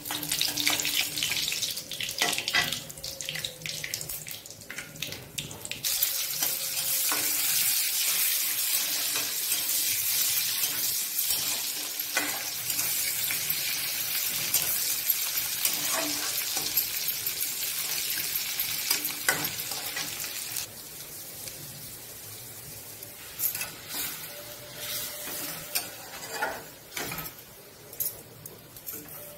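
Hot oil sizzling in an iron kadai for a dal tempering, with seeds and dried red chilli crackling and a metal spatula scraping and clicking against the pan. About six seconds in the sizzle turns loud and steady as chopped vegetables go into the oil, then dies down after about twenty seconds, leaving scattered spatula clicks.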